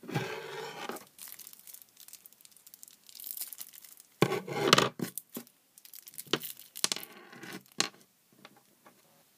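Plastic candy packaging for Sixlets being torn and crinkled open, in several rustling bursts, the loudest about four and a half seconds in, with a few sharp clicks after it.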